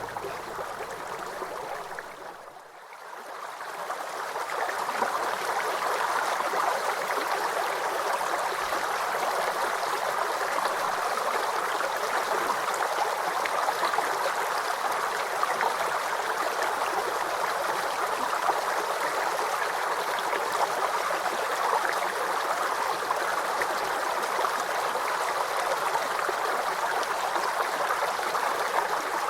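River water flowing and rushing steadily. It fades in after a brief dip about two to three seconds in, then holds even.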